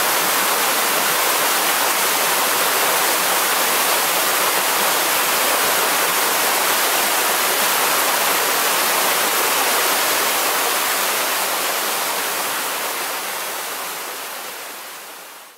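Steady rushing of a nearby waterfall, an even wash of falling water with no bird calls heard over it, fading out over the last few seconds.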